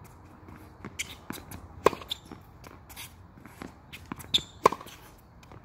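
Tennis racket striking the ball twice, about three seconds apart, each hit a sharp pop. Between the hits, softer ball bounces and the player's footsteps shuffle on the hard court.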